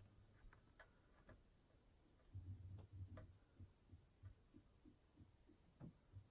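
Near silence with faint, irregular light clicks and soft taps, coming a few a second in the second half.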